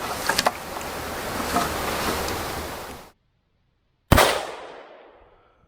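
A steady rushing noise, like wind on the microphone, cuts off about three seconds in. A second later a single gunshot from the Valmet 412 combination gun cracks out, the loudest thing here, its echo fading over about a second and a half.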